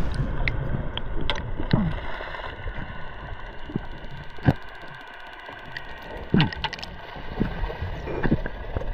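Underwater sound picked up by a camera held below the surface: a muffled low rumble, scattered sharp clicks and pops, and a few short pops that slide down in pitch.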